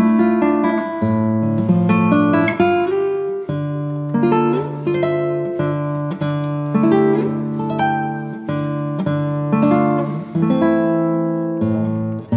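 Background music: an acoustic guitar playing a gently plucked and strummed melody.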